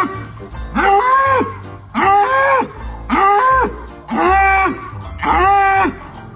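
An animal calling over and over: five long, loud bawling calls about a second apart, each rising, holding and then falling in pitch.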